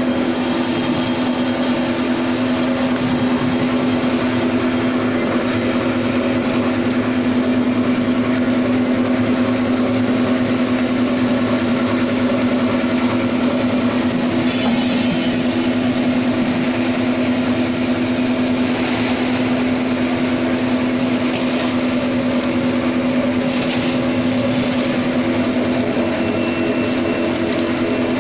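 Screw oil expeller running steadily under load while pressing sunflower seeds: a constant mechanical hum with a fixed pitch that does not change.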